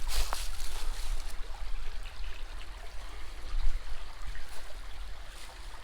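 Creek water running and trickling over rocks, a steady rush with no break.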